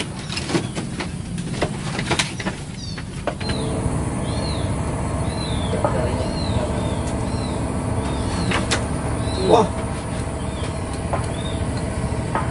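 A few sharp clicks and knocks, then a steady motor drone. Over the drone a bird repeats a short, high, arched chirp about once a second.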